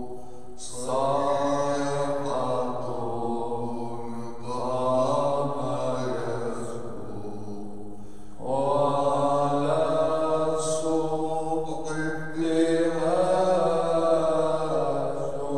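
A man chanting a slow liturgical hymn solo, a Maronite Easter procession chant, in long held phrases of about four seconds each.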